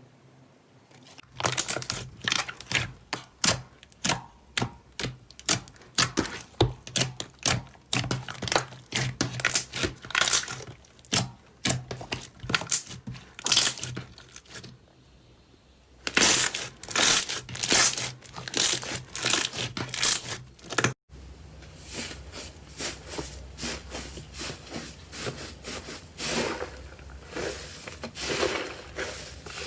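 Slime being squished and pressed by hand, giving dense, irregular crackling and popping clicks. The sound stops for about a second midway, and after an abrupt change about two-thirds through it goes on as quieter crackling over a low hum.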